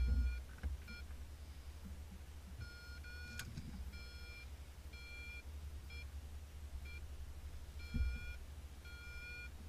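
An electronic beeper in a glider's cockpit sounds repeated beeps of one steady pitch, some short and some about half a second long, at an uneven rhythm. A low rumble runs underneath, and there are two thumps, one at the start and one about eight seconds in.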